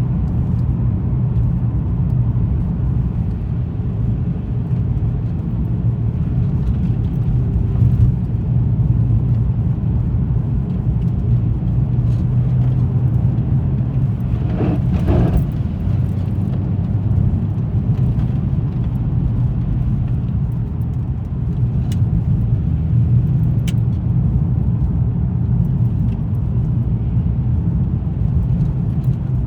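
Car driving along a road: a steady low rumble of engine and tyre noise. About halfway through, a brief pitched sound lasting about a second rises above it.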